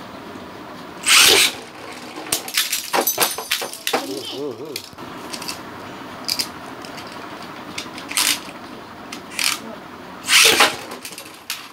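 Plastic clicks and rattles as Beyblade spinning tops are fitted onto their launchers, with two short, loud hissing rushes, one about a second in and one near the end.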